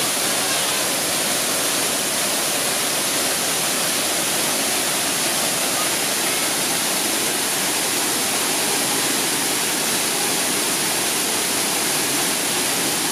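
Steady rush of water from a 17-metre waterfall falling in strands into its plunge pool.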